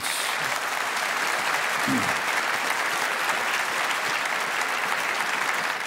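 Studio audience applauding steadily after a contestant's score is announced, with a brief voice about two seconds in.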